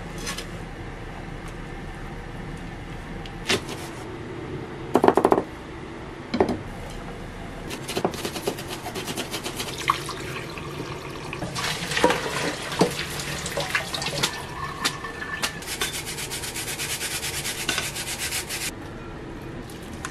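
Kitchen tap water running into a sink while a bowl is rinsed by hand, with a few knocks of crockery; a loud knock comes about five seconds in, and the running water stops abruptly near the end.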